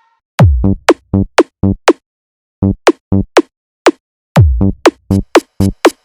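Electronic drum-machine beat: deep kick drums that drop sharply in pitch, followed by runs of short punchy drum hits in a stuttering pattern, broken by abrupt gaps of dead silence.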